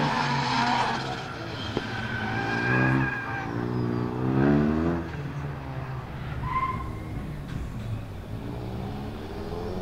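Tuned Lancia Delta Integrale Evo 2's big-turbo 2.0-litre four-cylinder revving hard and dropping off in repeated surges as the car powerslides, loudest about three and four and a half seconds in, then running quieter in the second half. Tyres squeal during the slides.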